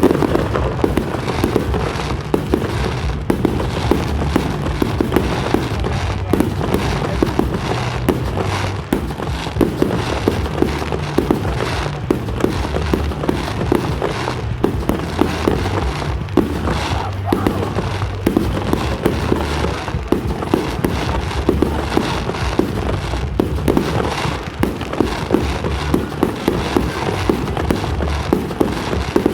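Fireworks display: a dense, continuous run of sharp bangs and crackles, several a second, throughout.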